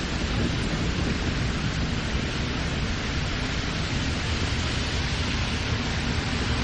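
Steady rushing road and wind noise of a moving car, even throughout, with no distinct engine note or other event standing out.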